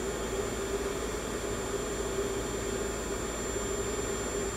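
Ozone generator running with a steady hum and an even hiss underneath, while it ozonates a jar of water.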